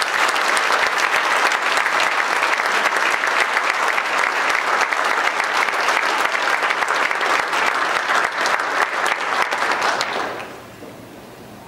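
Audience applauding steadily, then dying away about ten seconds in.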